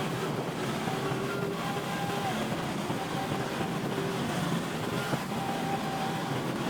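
Heavy earthmoving machinery's diesel engine running steadily under load, with short squealing tones coming and going over it.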